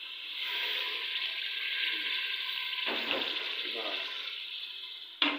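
Water poured into hot oil and roasting masala in a pressure cooker, which sizzles steadily and then dies down. A sharp clack near the end.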